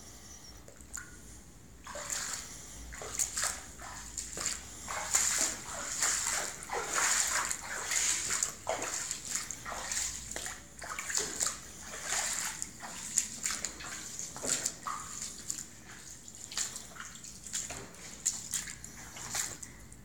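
Footsteps splashing and sloshing through shallow standing water flooding a sealed kitchen floor: an irregular run of splashes beginning about two seconds in.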